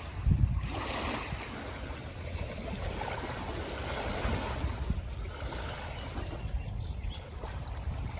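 Lake waves washing against the shore under gusty wind, a steady wash with a stronger low gust buffeting the microphone about half a second in.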